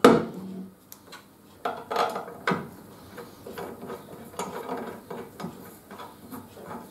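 Metal parts of a circular saw blade sharpening machine clanking and clinking as a clamp-and-hub fixture is fitted and adjusted by hand: a loud knock at the start, a few more around two seconds in, then lighter rattling and scraping. The machine's motor is not running.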